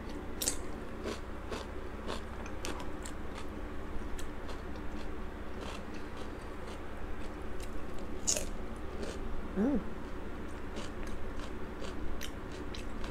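Close-up chewing and crunching of cucumber and crab meat, with frequent small wet mouth clicks and two louder crisp crunches, about half a second in and about eight seconds in.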